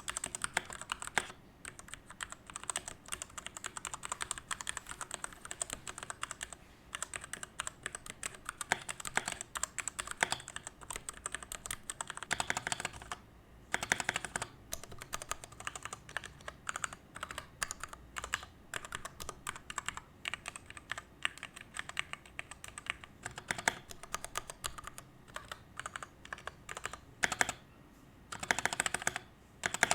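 Typing on a Royal Kludge RK68 Pro mechanical keyboard with RK red linear switches: a steady, irregular stream of keystrokes with a few short pauses, and quicker flurries of keys about halfway through and again near the end.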